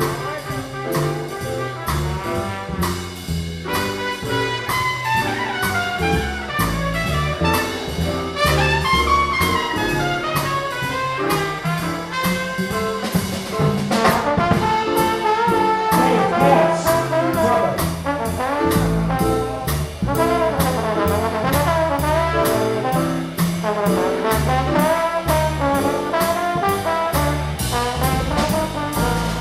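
A big band plays swing jazz, with the trumpet and trombone section carrying the melody over a steady beat and a stepping bass line.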